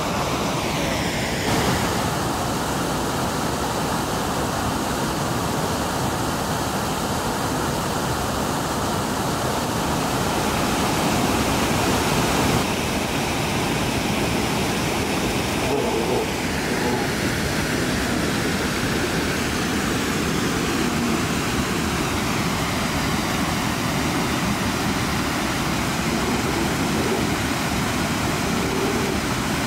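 Steady rush of white water pouring over Brooks Falls and through the rapids below, with an abrupt change in its tone a few times.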